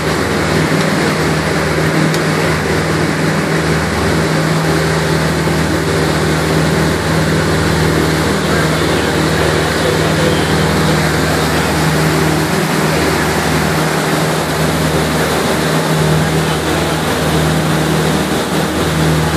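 Motorboat engine running steadily under way, a constant low hum over the rush of the churning wake and wind.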